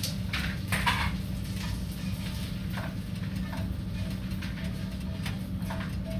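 A few short clatters of pots and pans being handled, the loudest about a second in, over a steady low hum.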